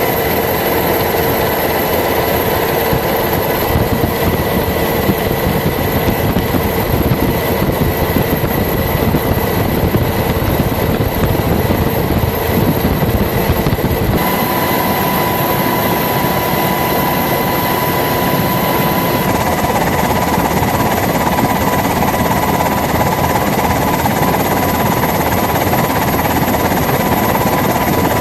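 Loud, steady engine drone with constant whining tones, changing character a little past halfway.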